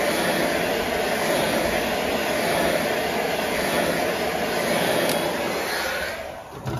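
Handheld electric heat gun running, a steady loud blowing rush of hot air over a fresh white airbrushed base coat to set the paint; it winds down near the end.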